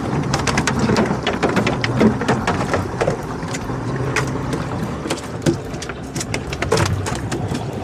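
Yamaha 200 outboard running at low speed with a steady low hum, under frequent clicks and knocks from handling on the fiberglass deck.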